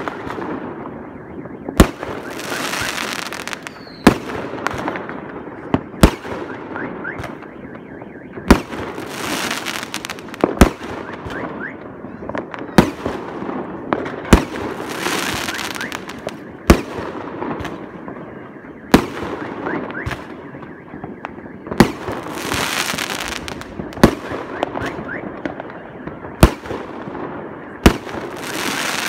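Fireworks going off one after another: a sharp bang about every two seconds, each followed by a crackling hiss.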